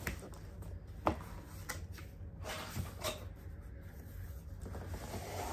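A large product box being handled and worked open: scattered taps and scrapes with a sharp knock about a second in, over a steady low hum.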